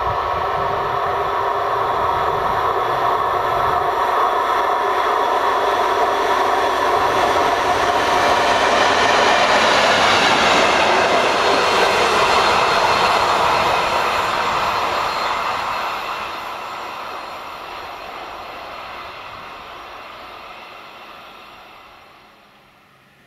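Diesel locomotive approaching and passing, its engine note a steady set of tones that swells to its loudest about halfway through. The note drops slightly in pitch as it goes by and fades away toward the end.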